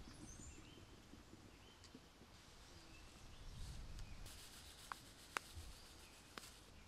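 Very quiet: faint birds chirping. About two-thirds of the way through, grated Parmesan is sprinkled into a ceramic bowl of garlic and oil, giving a soft, brief hiss with a few sharp ticks.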